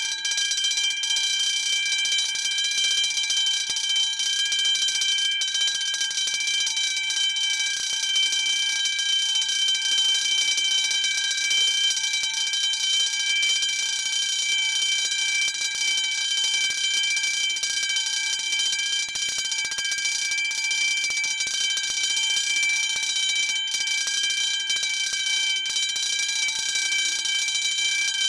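Electric alarm bell ringing continuously, a steady ring with no breaks.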